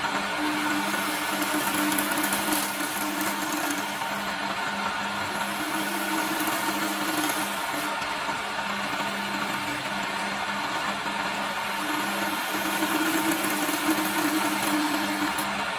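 Electric-motor wood lathe running steadily, with a steady hum, while a hand-held turning tool scrapes and cuts a spinning wooden spindle, giving a continuous hissing scrape over the motor.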